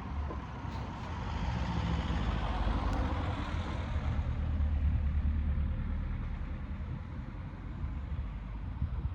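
Low rumble of a motor vehicle's engine with tyre hiss, swelling over the first few seconds and easing off toward the end.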